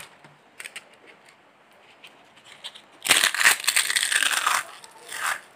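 Crisp fried spinach leaf chips being picked up and crushed in a hand. Light rustles and clicks come first, then about three seconds in a dense crackling crunch lasting about a second and a half, and a shorter crunch near the end. The crunch shows the chips are brittle and crispy.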